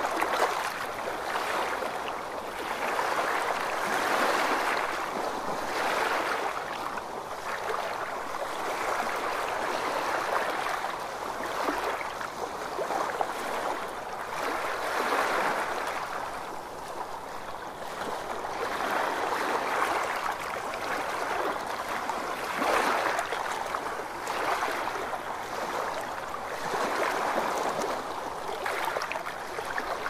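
Small sea waves washing up a sandy beach and drawing back: a soft rushing hiss that swells and fades every few seconds.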